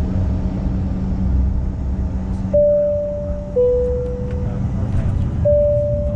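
CRJ-900 cabin chime sounding a two-tone high-low ding-dong, each note about a second long, about two and a half seconds in, then starting again near the end, over the steady low drone of the airliner cabin.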